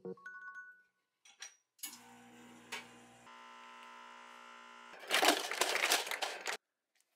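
Espresso machine's pump humming steadily while a shot pours. About five seconds in, ice cubes clatter loudly from a refrigerator's ice dispenser into a plastic cup for about a second and a half, then stop.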